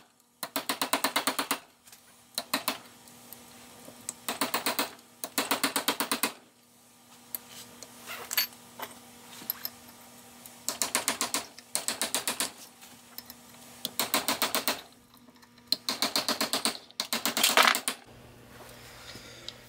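Runs of rapid metallic tapping, about ten taps a second in bursts of a second or so, as a punch or chisel is worked against the steel lock tab on a tractor pinion nut to bend the tab up.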